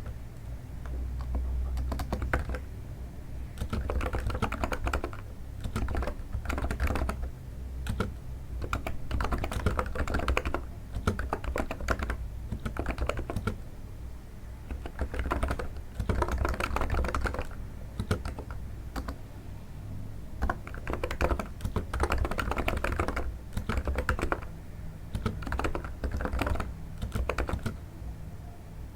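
Typing on a NiZ electro-capacitive keyboard: flurries of quick keystrokes with short pauses between, each key a soft sound likened to stepping on snow. A low steady hum lies under the keystrokes.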